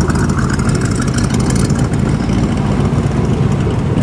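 Engine of a rebuilt 1950s Buick sedan running loud and uneven through short open exhaust pipes rigged as a flamethrower, with a harsher high edge over it for the first two seconds.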